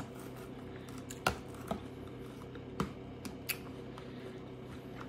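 A fork clicking against a plastic takeout salad bowl a handful of times, with pauses between, over a low steady hum.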